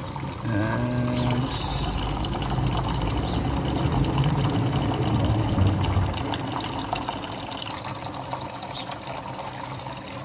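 A thin stream of hot liquid from a steam wax melter's spout pouring into a stainless steel bowl, splashing and frothing on the surface. The outflow is changing from honey water to molten beeswax.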